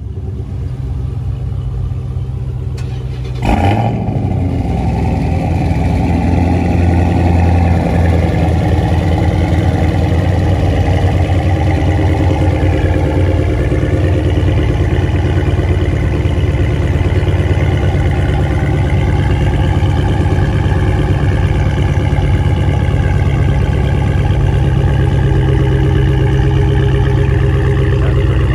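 Dodge Charger V8 engines idling with loud aftermarket-style exhaust. About three and a half seconds in there is a sharp burst and the sound steps up louder, like another engine catching; the idle then runs steady with no revving.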